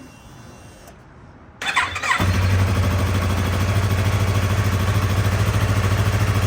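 A 2016 Yamaha R3's 321 cc parallel-twin engine is cranked briefly on the electric starter about a second and a half in, catches about two seconds in, and settles into a steady idle.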